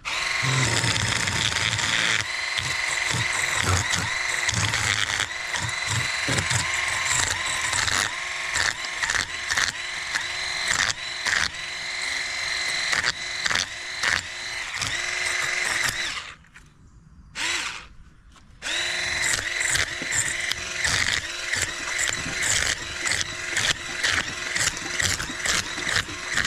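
Electric fish scaler running with a steady motor whine, its spinning head rasping over the scales of a large sheepshead with rapid ticking. About two-thirds of the way through the motor cuts out, gives one short burst, then runs again.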